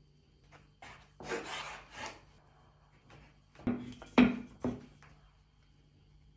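A rasping scrape lasting about a second, then three short knocks about half a second apart, like kitchen food preparation.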